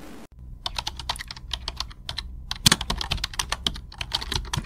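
Computer keyboard typing sound effect: a quick, uneven run of key clicks, starting about a third of a second in, laid over text being typed out on screen.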